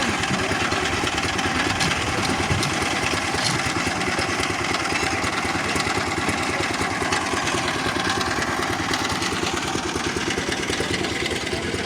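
Concrete mixer machine's engine running steadily with a rapid, even pulse.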